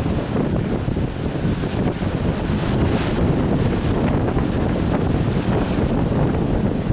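Strong wind buffeting the microphone on an open ship's deck, a steady low rumble that gusts and flutters.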